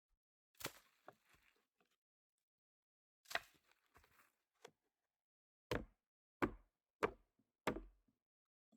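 Sharp knocks of striking tools on a wooden log as it is hollowed out for a beehive. There are two separate blows early, then four in a row about two-thirds of a second apart.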